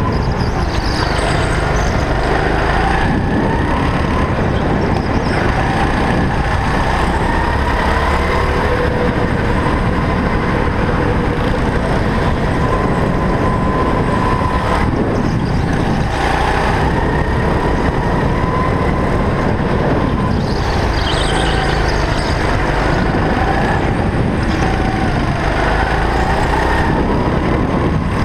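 Go-kart engine heard from onboard, its pitch rising on the straights and falling off into the corners, over a heavy low rumble.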